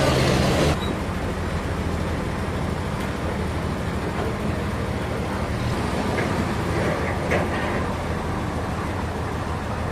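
Sawmill machinery running with a steady low hum. A louder, hissing noise cuts off under a second in.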